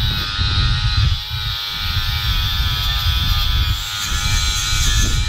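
Earthquake XT 20V brushless 4-1/2 in. cordless angle grinder running under load, a 30-grit flap disc grinding rust off a brake rotor, with a steady high whine. Wind buffets the microphone with an uneven low rumble.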